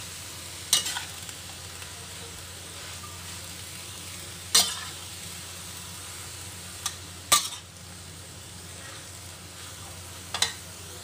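Cabbage, carrots and meat sizzling steadily in a stainless steel wok as they are stir-fried, with a metal spatula clanking sharply against the wok about five times.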